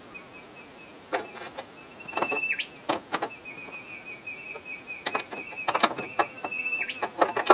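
Light metallic clicks and knocks of a spanner working on a pipe fitting on an old steam cleaner, loosening the connection. Under them a thin, high, steady whistle sounds in long stretches, each ending with a short drop in pitch.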